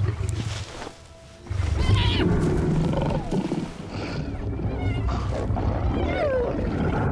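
A male lion growling and a spotted hyena letting out high, gliding yelps and squeals as the lion pins it down, over dramatic music. After a short lull about a second in, the fight noise comes in loud and stays loud.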